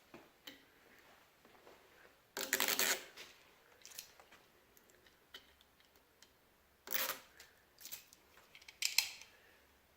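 Handling noises of parts being worked by hand: a few short scrapes and clicks. The two loudest come about two and a half seconds and seven seconds in.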